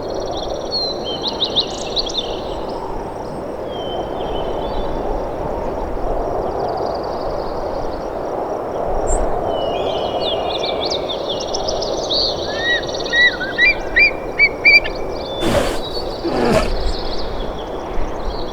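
Wild birds chirping and calling over a steady outdoor background noise, with a flurry of quick repeated chirps in the second half. Two sharp knocks come near the end.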